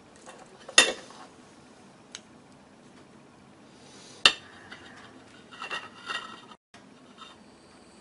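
Chopsticks clicking against a porcelain plate and Chinese soup spoon while fried chicken wings are picked up. Two sharp clinks come about a second in and about four seconds in, then a few lighter clatters around six seconds.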